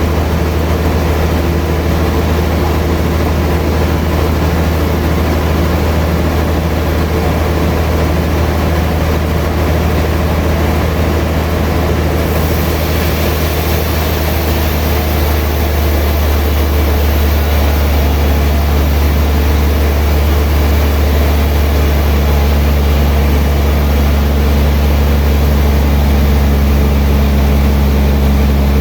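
Sawmill machinery running with a loud, steady low hum. The sound changes about twelve seconds in, when a high hiss joins it, and the hum shifts pitch a few seconds later.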